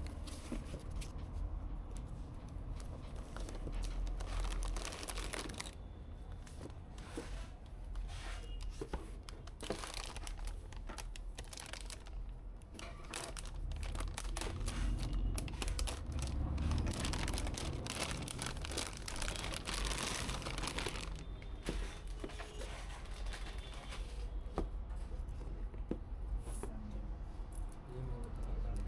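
Crinkling and rustling handling noise with many irregular clicks, like packaging or plastic being handled, over a steady low hum.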